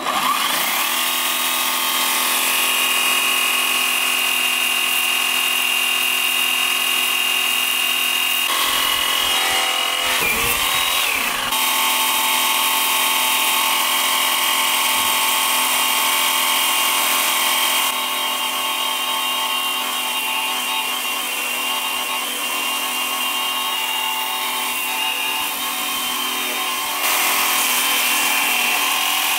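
Electric chainsaw switching on and running with a steady high whine as its chain saws into a watermelon. The pitch sags and wavers briefly about nine to eleven seconds in, and the level drops a little between about eighteen and twenty-seven seconds.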